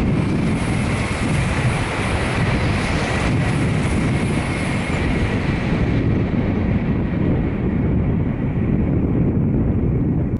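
N700-series Shinkansen high-speed train passing at speed over a concrete viaduct: a loud rushing rumble with a steady high whine. The hiss fades about six seconds in as the train pulls away, leaving a low rumble.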